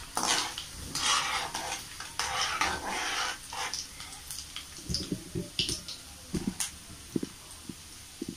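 Garlic cloves and chana dal frying in hot oil in a metal kadai, stirred with a perforated metal skimmer ladle that scrapes the pan. Noisy stirring strokes fill the first few seconds, then give way to short, light knocks of the ladle against the pan.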